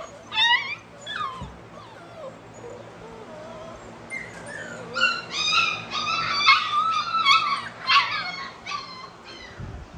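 A litter of American bully puppies whining and whimpering in high voices. There is a short whine at the start, then a quieter few seconds, then several puppies whine over one another from about five seconds in until near the end.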